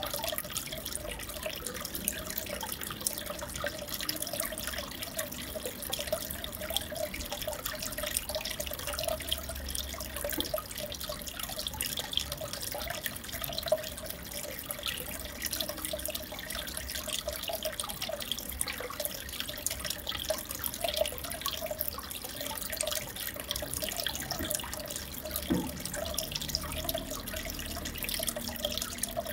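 Aquarium water running and bubbling steadily, with a dense patter of small drips and splashes.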